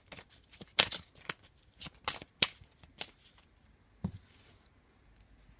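A deck of divination cards being shuffled by hand: a run of crisp card snaps and taps that eases off about three and a half seconds in, followed by a single soft thump about four seconds in.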